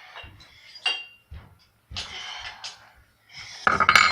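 Hand tools and metal BMX parts clinking and clattering during bike assembly: a few sharp, briefly ringing clinks, then a louder run of metal rattling near the end.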